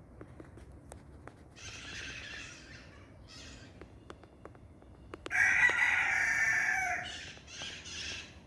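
Rooster crowing: one long, loud crow about five seconds in that drops in pitch at its end, with fainter calls before and after.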